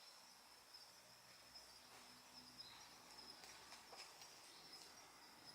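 Near silence with a faint, steady high-pitched insect trill, and a faint low note from a calling male Tago frog a little over two seconds in.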